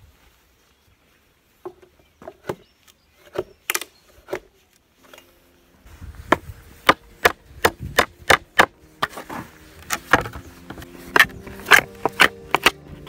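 Claw hammer striking wooden pallet boards to knock them apart by hand: a few scattered knocks at first, then, about halfway through, a steady run of hard blows, two to three a second.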